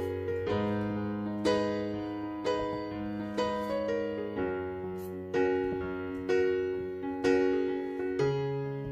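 Soft background piano music: a slow piece in which a note or chord is struck about once a second and left to ring.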